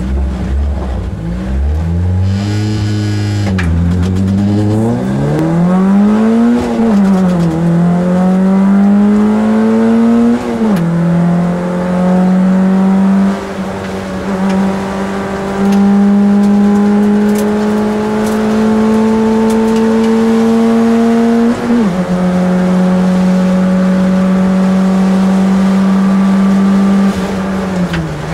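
Rally car's engine heard from inside the cabin, pulling away and accelerating hard through the gears: the engine note climbs, drops sharply at each upshift (three times), holds steady at high revs, then falls away near the end as the throttle is lifted. A brief high hiss sounds about two to three seconds in.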